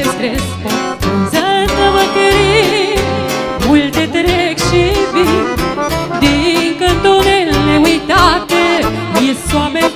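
Live Romanian lăutari folk music on clarinet, cimbalom and Weltmeister accordion. A fast melody full of trills and quick runs plays over a steady, even beat.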